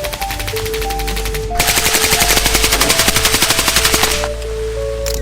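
AK-47 rifle in 7.62x39 firing rapid automatic fire at about ten shots a second, with the loudest, longest burst from about a second and a half in until about four seconds. Background music with a steady melody plays underneath.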